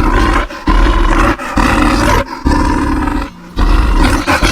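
Bear roar sound effect: about five loud, rough roars in a row, each under a second long, with short breaks between them.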